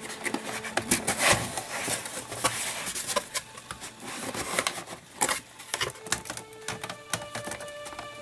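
Cardboard shipping box being opened by hand: flaps pulled back and cardboard rubbing and scraping, with many irregular sharp clicks and crackles.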